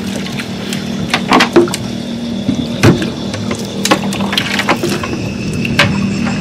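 Scattered sharp knocks and rattles as a wet cast net and its sinkers are gathered and handled against a small boat's hull, over a steady low engine hum.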